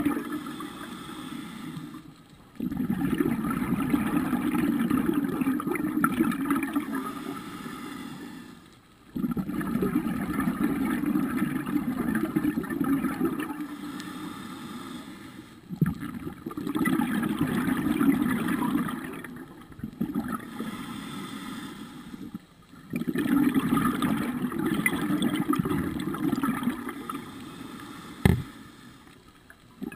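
Scuba diver breathing through a regulator underwater: long surges of exhaled bubbles, each broken by a short quieter gap for the next breath, about every six to seven seconds. A single sharp click comes near the end.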